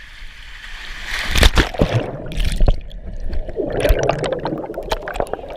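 Water splashing and sloshing. It builds from about a second in, with sharp splashes over a rough, steady rush of water.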